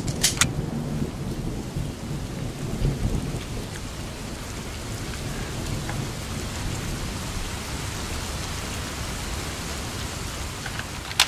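Steady rain with a low rumble of thunder, like a storm ambience. Two sharp clicks come just after the start and another near the end.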